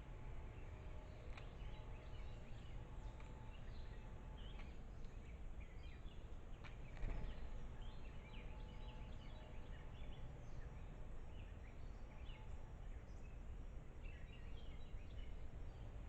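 Small birds chirping in short, scattered calls over a steady low outdoor rumble, with a single sharp knock about seven seconds in.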